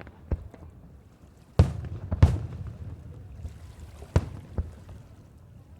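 Fireworks display with aerial shells bursting: about five sharp bangs, each trailing off in a rolling echo. The two loudest come about one and a half and two and a quarter seconds in.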